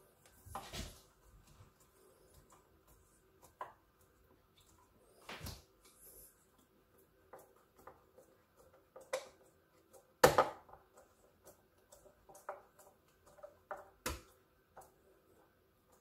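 Hand screwdriver turning a faceplate screw into a plastic double wall socket: scattered small clicks and scrapes, with a few sharper clicks, the loudest about ten seconds in.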